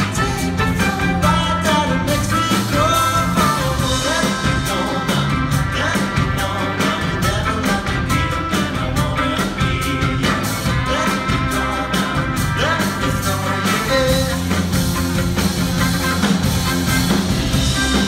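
Live rock-pop band playing a song with a lead vocal: drums, electric bass and electric guitar under a singer who also plays a small acoustic guitar.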